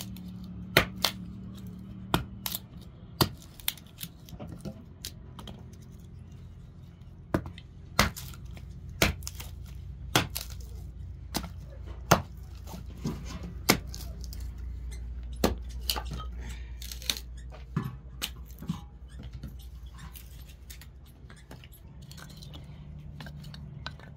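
A small hatchet splitting wood into kindling sticks on a wooden block: sharp chopping strikes at uneven intervals, about one a second, with the split wood cracking apart. The strikes thin out in the last few seconds, over a low steady hum.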